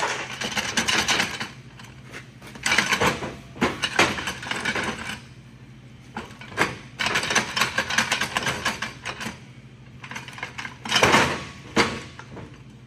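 Metal parts inside a 4L60E automatic transmission case clattering and scraping as they are worked loose by hand and with a screwdriver, in four or so irregular bursts of clicks and rattles. A stubborn internal part is being worked free.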